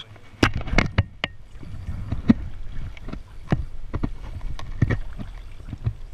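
Creek water sloshing and splashing around wading legs, with a run of irregular sharp knocks, about ten, muffled as heard through a waterproof camera housing.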